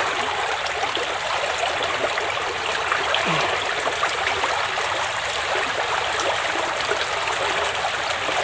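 Shallow stream running steadily, a constant rush of flowing water.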